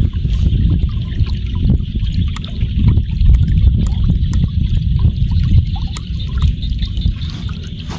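Water running and trickling, with wind rumbling heavily on the microphone throughout.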